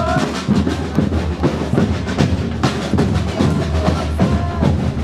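Street procession drumming of a congada-style group: several large drums beaten with soft mallets in a fast, steady rhythm.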